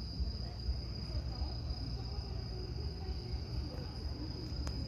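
Insects chirring steadily in one high, even tone over a low outdoor rumble, with a single short click near the end.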